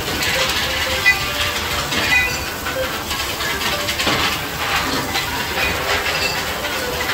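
Factory floor noise: a steady hiss with repeated metal clinks and knocks, one sharp knock about a second in.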